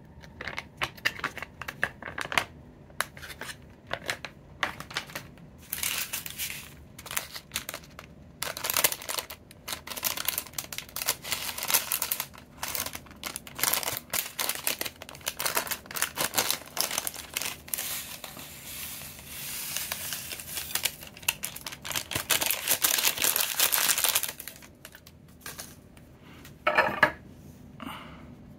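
A small plastic seasoning packet crinkling as it is handled and torn open, in irregular runs of crackling, with a brief louder sound near the end.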